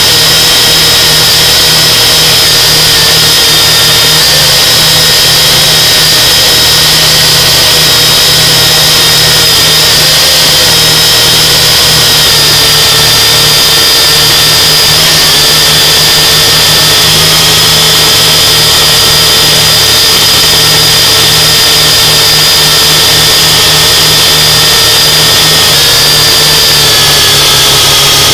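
UDI Falcon quadcopter's motors and propellers whining steadily, loud and close through the drone's own onboard camera microphone. The pitch wavers slightly with throttle and dips briefly near the end.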